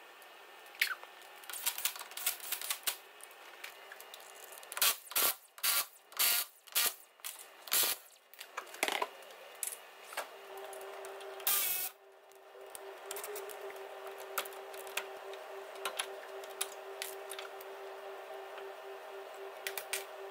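Metal clicks and knocks of hand tools and parts being worked on a pickup's front wheel and brake caliper. There is a run of sharp knocks, about two a second, in the first half, and a short loud burst of noise about halfway through. After that a steady hum sets in.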